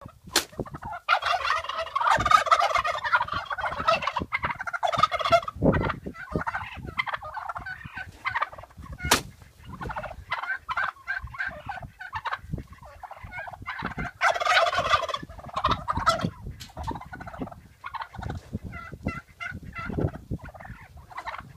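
Turkeys gobbling. A long stretch of gobbling comes in the first few seconds and another about two-thirds of the way through, with shorter calls between them. A few sharp thumps are heard as well.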